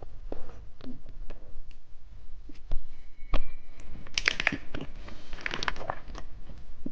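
Crinkling and tearing of a plastic candy wrapper. There are scattered clicks at first, then a dense run of crinkling about four seconds in.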